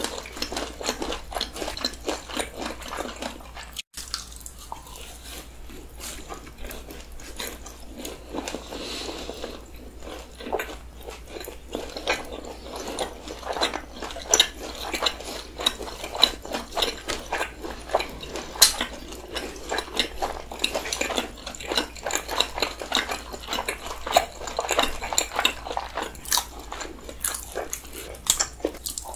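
Two people chewing fried chicken and snacks close to the microphone: a continuous run of soft chewing noises and mouth clicks and smacks, growing busier and louder partway through. The sound drops out for an instant about four seconds in.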